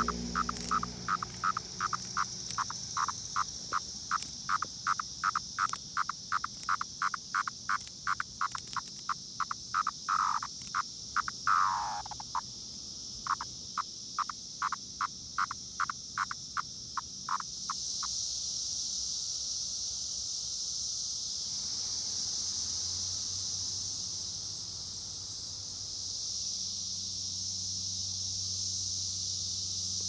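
A Brood X periodical cicada calling close by in a series of short buzzy pulses, about two a second, with one longer call that drops in pitch about halfway through. The pulses stop a little past halfway. Under them runs a steady high-pitched drone from a distant cicada chorus, which comes forward once the pulses end.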